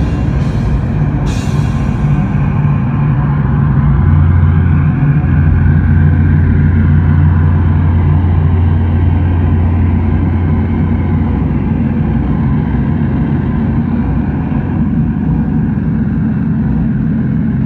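Electric guitar amplifier left feeding back after the song: a loud, steady low drone that deepens and strengthens about four seconds in, with a few sharp clicks in the first second or so.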